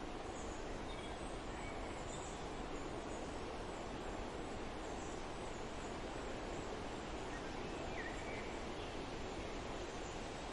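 Steady wind rushing through forest trees, with a few faint, brief bird chirps.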